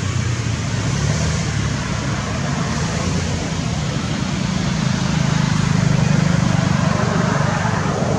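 Steady low engine rumble of a motor vehicle running nearby, swelling slightly for a couple of seconds past the middle, over a constant outdoor hiss.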